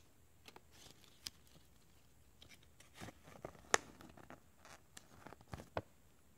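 Folded paper warranty leaflet being unfolded and handled: faint, scattered crinkles and rustles, with one sharper crackle a little past halfway.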